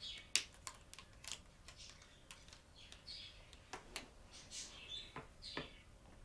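Felt-tip marker squeaking and tapping on a whiteboard as a letter is written, in short, irregular squeaks and clicks.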